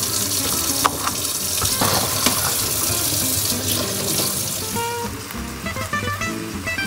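Tap water running into a sink, with a few light knocks, for the first four seconds or so. Then background music with clear pitched notes comes in at about five seconds.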